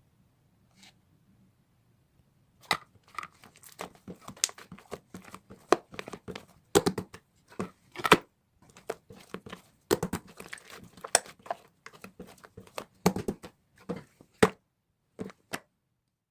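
Irregular crinkling, tearing and clicking handling noises, dense and uneven, starting a little over two seconds in and stopping shortly before the end.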